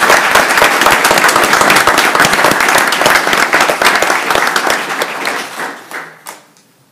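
A roomful of people applauding, the clapping thinning out and dying away near the end.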